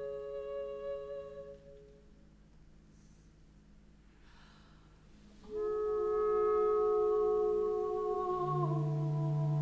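Contemporary chamber music of long held notes, clarinet among them: the held notes fade away after about two seconds, a hushed pause follows, then new sustained notes slide in a little past halfway, step slightly down near the end and are joined by a low steady tone.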